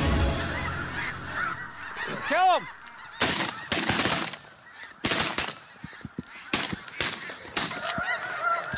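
Snow geese honking overhead, then a string of about six shotgun shots, the first at about three seconds, over some four and a half seconds.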